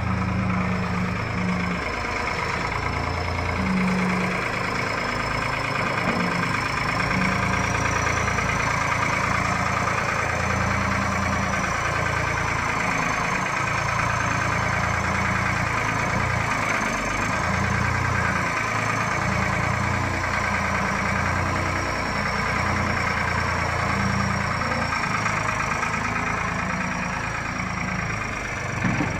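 UNC 080 skid-steer loader's three-cylinder turbocharged diesel engine running steadily, with a faint high whine over it.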